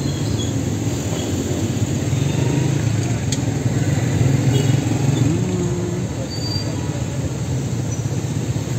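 Steady low rumble of street traffic, with vehicle engines running.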